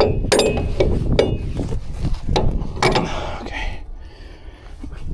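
Steel winch cable and rigging hardware being handled, a string of sharp metallic clanks and rattles with a brief ring in the first few seconds, then quieter.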